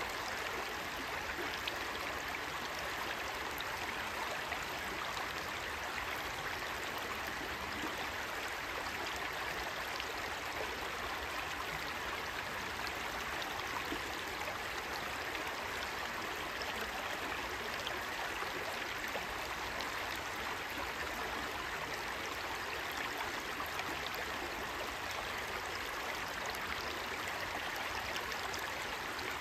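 Shallow rocky stream babbling steadily as water runs over and between the stones, an even rushing hiss with fine gurgling detail.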